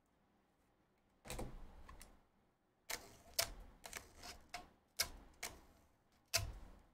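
A run of about ten sharp, irregular clicks and light knocks starting about a second in, the loudest few in the second half.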